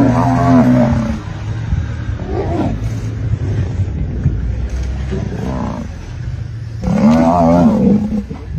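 Two drawn-out animal calls, one right at the start and one about seven seconds in, each about a second long with a wavering pitch, over a steady low hum, as lionesses attack a Cape buffalo and her newborn calf.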